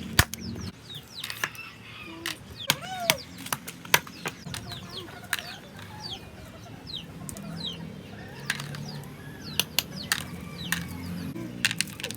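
Chickens clucking and chicks peeping in many short falling chirps, with irregular sharp clicks and knocks throughout.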